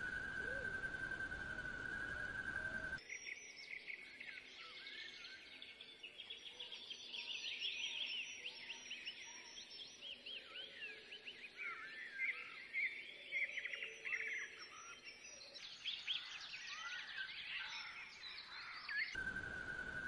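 A dense chorus of many small birds chirping and calling over one another, starting abruptly about three seconds in and cutting off about a second before the end. Before and after the chorus there is a steady high tone.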